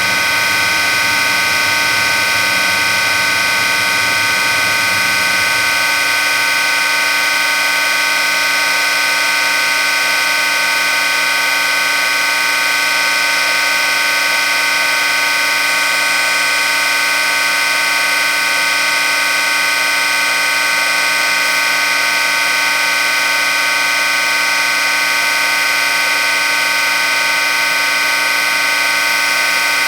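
Surface grinder running with its spindle and wheel spinning freely, a steady whine of several held tones over a hiss; the wheel has not yet touched the work. A lower hum underneath drops away about six seconds in.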